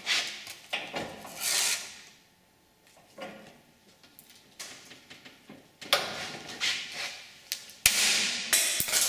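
Clear acrylic sheet being slid into a hand-operated sheet metal bending brake and clamped, with metal knocks and clatter from the brake's clamp and leaf. Near the end the leaf is swung up and there is one sharp crack: the brittle acrylic breaking instead of bending cold.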